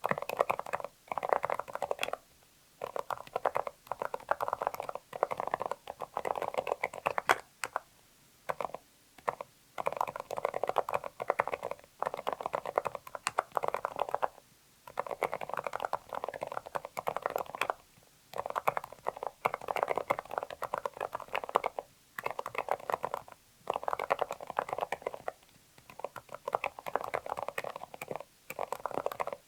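Typing on a Zoom65 mechanical keyboard with silent Kailh Deep Sea Silent Box Islet linear switches, aluminium plate and PBT double-shot keycaps: rapid, muffled keystrokes in runs of one to three seconds with short pauses between them.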